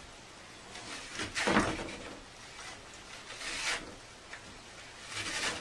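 Scraping, rubbing noises, three times about two seconds apart, the middle one the loudest.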